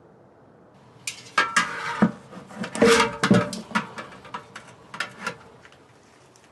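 Metal parts clanking and scraping as they are handled, a quick irregular run of knocks starting about a second in, loudest around the middle, then a few last clinks.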